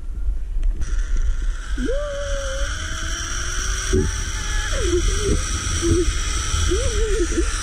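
Zip-line trolley pulleys rolling along a steel cable: a steady whine sets in about a second in and holds. Wind buffets the microphone underneath, and a few wavering tones slide up and down over it.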